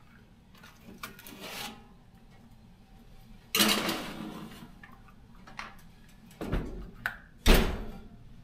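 A metal baking sheet clattering onto the rack of a gas range oven about three and a half seconds in, followed near the end by knocks as the oven door is shut.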